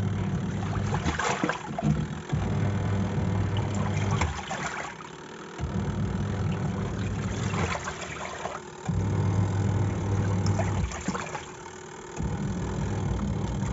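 Semi-automatic top-load washing machine on its wash cycle: the pulsator motor hums in runs of about two seconds with a second's pause between, reversing the wash action, while water and clothes slosh in the tub.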